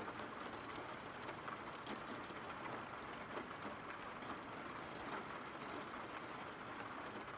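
Steady rain: an even hiss with scattered small drop ticks.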